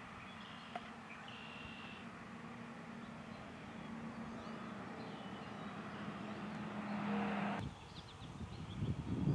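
A vehicle's engine hum slowly grows louder while small birds chirp now and then. Near the end the sound cuts off abruptly and gives way to a low, uneven rumbling on the microphone.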